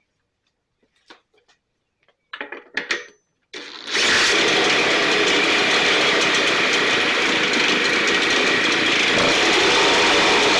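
Stihl BR 450 backpack blower's two-stroke engine being pull-started: a few short bursts, then it catches about three and a half seconds in and runs steadily and loudly with the rush of the blower fan.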